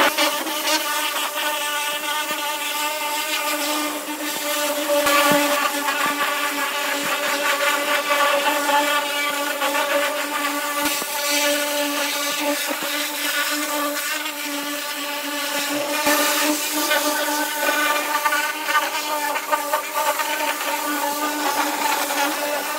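Pressure washer running steadily with a constant pitched hum, its water jet hissing as it blasts loosened paint and rust residue off bare car-body sheet metal.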